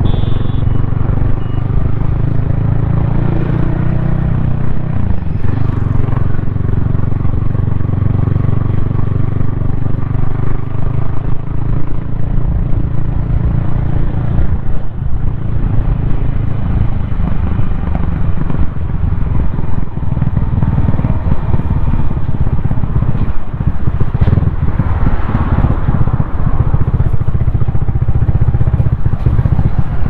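Yamaha XSR155's single-cylinder engine running on the move, its note shifting up and down with the throttle, heard from a helmet-mounted camera.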